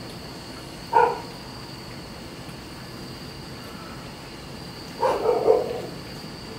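Neighbour's dog barking: one short bark about a second in, then a quick run of barks about five seconds in.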